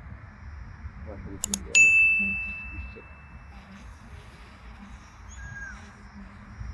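Two quick clicks, then a bright bell-like ding that rings on for almost two seconds: the click-and-bell sound effect of a subscribe-button animation, over faint steady outdoor background noise.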